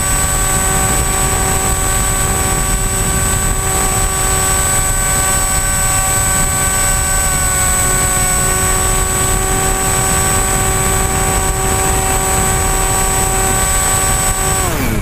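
AXN Floater Jet RC plane's electric motor and propeller whining at a steady pitch over a rush of wind on the onboard camera, with a slight drop in pitch about halfway. Near the end the pitch falls away sharply as the motor spools down with the throttle cut.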